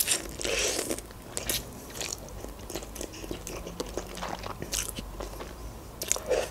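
Close-miked eating of instant noodles: slurping strands in off a fork and chewing, with irregular small wet mouth clicks.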